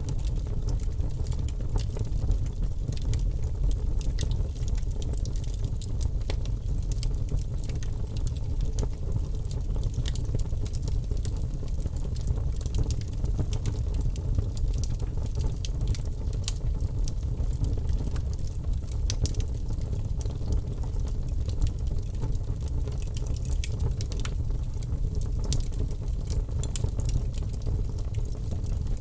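Wood fire crackling, with frequent small irregular pops and snaps over a low steady rumble.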